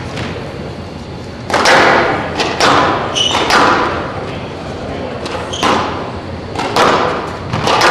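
Squash rally: the ball is struck by racquets and hits the court walls, a sharp echoing crack about once a second with a short lull midway. Brief high squeaks of court shoes on the floor come in between.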